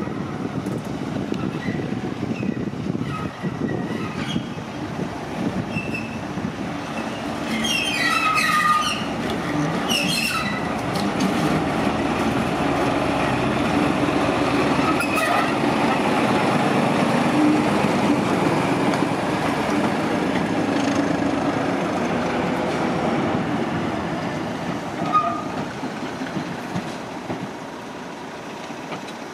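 British Rail Class 14 diesel-hydraulic shunting locomotive running slowly over pointwork, its engine growing louder as it approaches and passes, then easing off near the end. About eight to ten seconds in, a few brief wheel squeals and clanks as it crosses the points.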